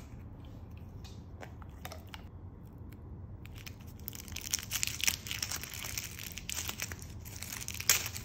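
Paper wrapper around a burger-shaped dog treat crinkling and tearing as it is unwrapped by hand. The dense crackling starts about three and a half seconds in and carries on to the end.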